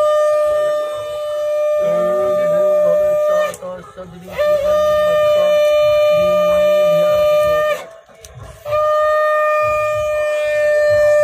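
Conch shell (shankha) blown in long, steady single-note blasts with short breaks for breath: one ends about three seconds in, a second lasts about three seconds, and a third starts near the end. The conch is sounded as the auspicious call during a Bengali Hindu wedding rite.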